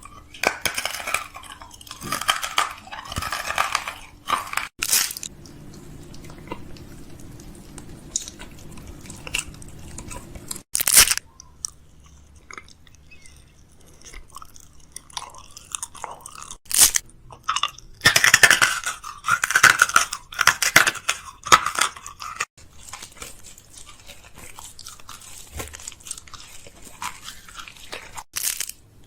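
Something crunchy being chewed: sharp, crisp crunches come at irregular intervals, with a dense run of crunching past the middle and quieter chewing between.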